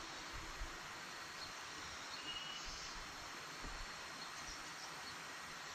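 Faint, steady tropical-forest ambience, an even hiss, with soft footsteps on a dirt path and a brief high chirp about two seconds in.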